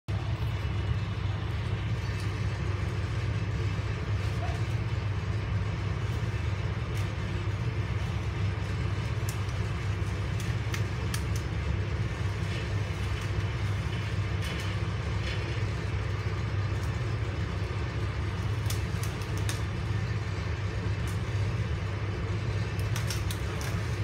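A steady, low engine drone of tree-crew machinery running, with a few faint clicks and knocks over it.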